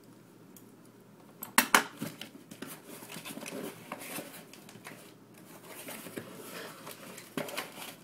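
Packaging being opened by hand: two sharp snaps about a second and a half in, then rustling and crinkling of the wrapping, with another sharp click near the end.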